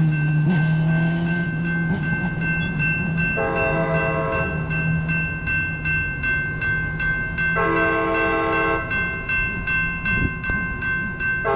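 A train horn sounds two long blasts and then a short one, the pattern of the long-long-short-long grade-crossing signal. Under it a crossing bell rings steadily and a locomotive's engine drones low.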